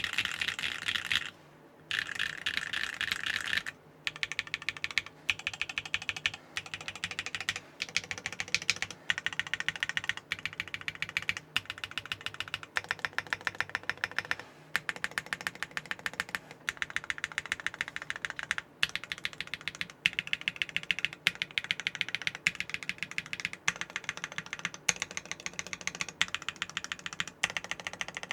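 Typing on a mechanical keyboard with HMX Gulf linear switches, foamless with a carbon fiber plate: fast, even key clacks in runs, broken by a few short pauses.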